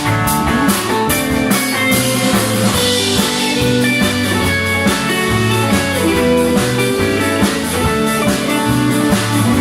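A band playing with guitar, bass and drum kit, steady beat and sustained guitar notes.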